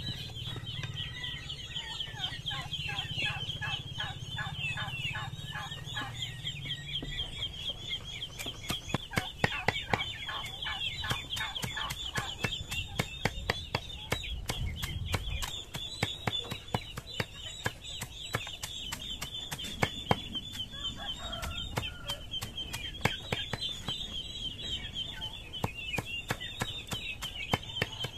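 A knife chopping leafy greens on a chopping block in quick repeated strokes, the strikes growing sharp and frequent from about eight seconds in. Chickens cluck throughout.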